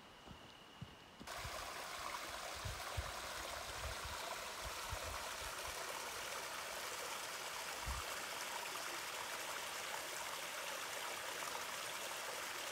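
Small woodland waterfall and stream running over rocks into a pool: a steady rushing splash that starts abruptly about a second in. Low soft thumps come and go under it through the first part.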